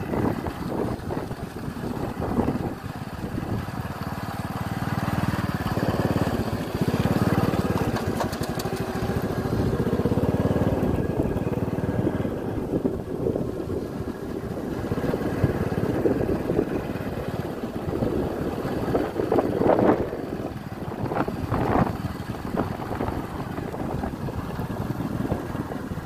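Motorcycle engine running steadily at riding speed, mixed with wind rushing on the microphone. A few louder jolts come about three-quarters of the way in.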